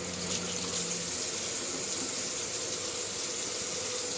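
Kitchen faucet running steadily into the sink, raw chicken pieces being rinsed under the stream.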